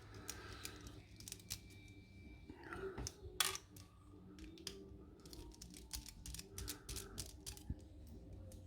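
Faint, scattered small clicks and taps of hand tools and metal lock parts being picked up and handled.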